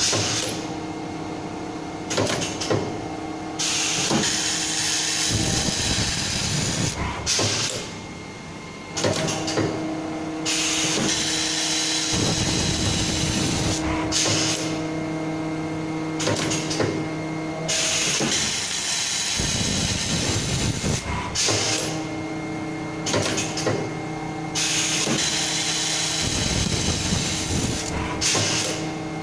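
Automatic laser saw-segment welding machine running its welding cycle: spells of loud hissing alternate with spells of a steady multi-tone machine hum, with clicks and knocks from the machine's moving parts throughout.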